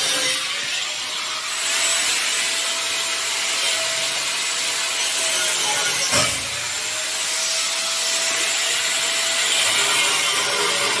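Power tool cutting through a steel motorcycle frame tube to free the headstock, running steadily under load, with a brief knock about six seconds in.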